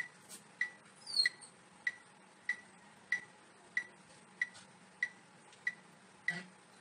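Steady metronome-like ticking, about three ticks every two seconds, each a short high tick keeping an even beat for the exercise. About a second in comes one brief high squeak that falls in pitch.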